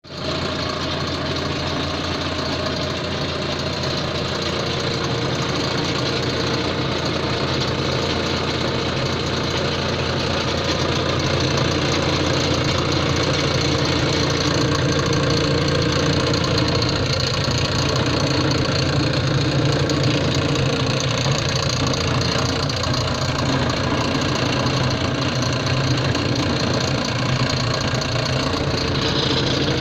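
Homemade bench drill press, built from scrap, running steadily with a continuous motor hum and mechanical rattle, getting a little louder about a third of the way through and then holding.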